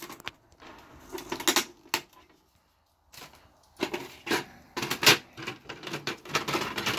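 Plastic printer parts and packaging being handled: irregular clicks, knocks and rustling, with a brief pause a little over two seconds in.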